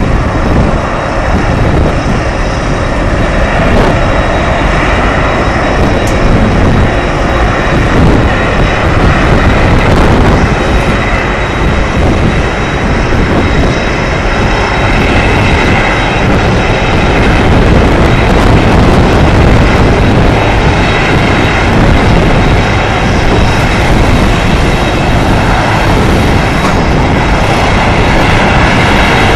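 Boeing 747-400F taxiing on its four turbofan engines: a steady low rumble with a thin high whine over it.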